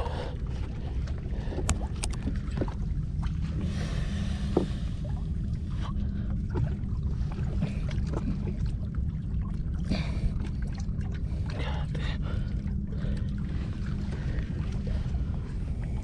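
Steady low rumble of wind and water lapping against the rocks of a riprap shoreline, with faint scattered clicks and scrapes as hands work a caught fish loose from between the rocks.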